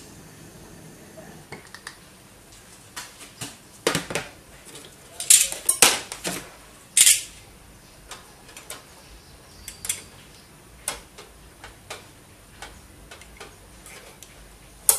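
A metal tool clinking, tapping and scraping against ceramic processors and their metal lids on a heated plate, as they are prodded to pry off the lids once the solder softens. Irregular sharp clicks and knocks, thickest from about four to seven seconds in, with another sharp one near the end.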